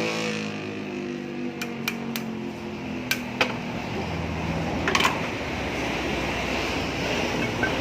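A motor spinning down after being switched off, its pitch falling steadily for about three and a half seconds until it fades out. A few sharp clicks sound in the middle of the run-down.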